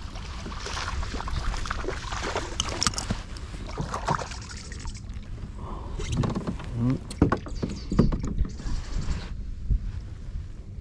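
Hooked largemouth bass splashing at the surface beside a kayak as it is played in and landed. Several sharp knocks and handling noises on the kayak follow in the second half.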